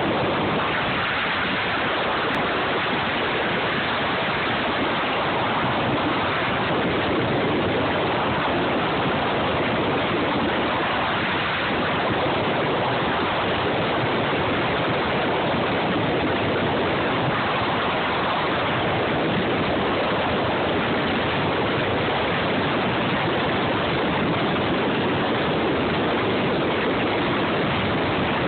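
Steady rushing noise of wind and road across a phone microphone held out beside a moving car.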